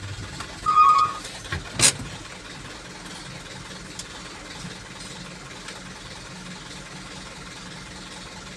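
Vehicle engine running steadily, heard from inside the cab, with a few loud knocks and a short squeak in the first two seconds.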